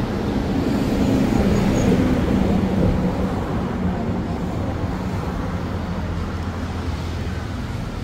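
Road traffic noise: a vehicle's engine and tyres rumbling past, loudest around the first two seconds and then easing off into a steadier traffic hum.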